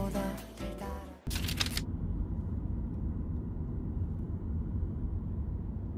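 Background music fades out about a second in, then a short hiss, then the steady low rumble of road noise from a moving car.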